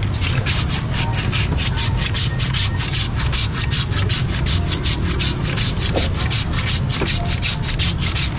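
A block of ice shaved by hand on a manual ice shaver, pushed back and forth over the blade in a fast, even rasping scrape of about five strokes a second. A steady low rumble runs underneath.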